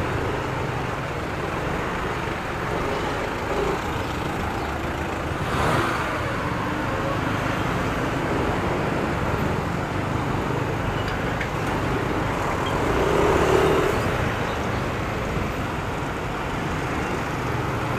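Yamaha Aerox 155 scooter riding slowly through congested city traffic: a steady mix of the scooter's engine and the surrounding traffic.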